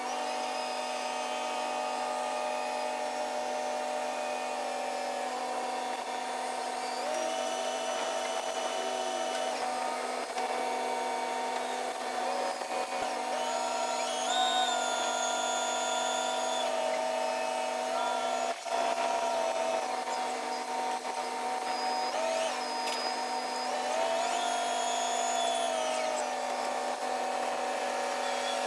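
Liebherr LTM 11200-9.1 mobile crane's engine at work, played back at ten times speed so that it sounds as a high whine. Its pitch steps up and back down several times as the engine revs under the lift.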